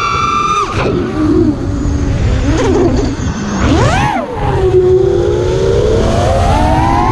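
Racing quadcopter's brushless motors and three-blade propellers whining, the pitch climbing and falling sharply with throttle: it drops abruptly about a second in, sweeps up and back down near the middle, and climbs again toward the end. A steady low rumble runs underneath.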